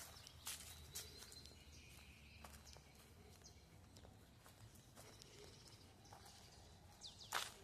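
Faint, uneven footsteps on dry leaves and ground at a slow walk, with one louder knock near the end.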